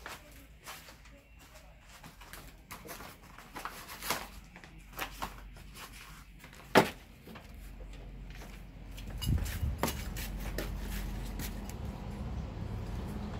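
Scattered clicks and crackles of an empty plastic water bottle being carried in a dog's mouth, with one sharp knock just before the halfway mark. From about two-thirds in, a steady low hum takes over.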